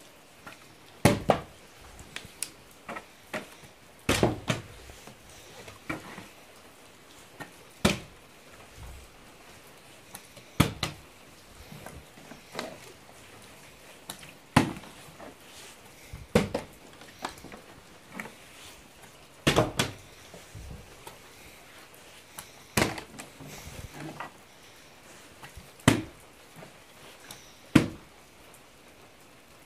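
Partly filled plastic water bottle being flipped again and again and landing on a hard floor, a sharp thunk every two to three seconds, about a dozen in all, with smaller knocks between.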